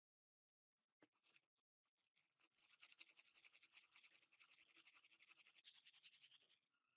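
A strip of sandpaper rubbed quickly back and forth around the copper commutator of an electric chainsaw motor's armature, cleaning the commutator. A few short scrapes come first, then quiet, fast, continuous scrubbing from about two seconds in that stops just before the end.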